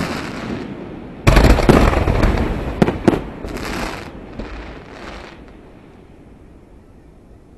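Aerial fireworks shells bursting: a loud boom about a second in, then several sharp bangs, with the echoing noise fading away over the last couple of seconds.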